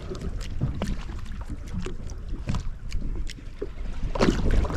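Water slapping against the hull of a drifting boat, with wind on the microphone, a steady low rumble and scattered short sharp clicks and knocks; a louder burst of noise comes about four seconds in.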